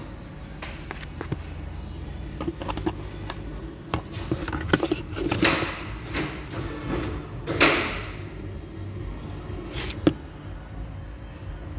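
Metal suspension parts on a car's front corner being worked with a hand tool: scattered knocks and clunks, with two louder short rasping noises about five and a half and seven and a half seconds in, and a sharp click near the end, over a steady shop hum.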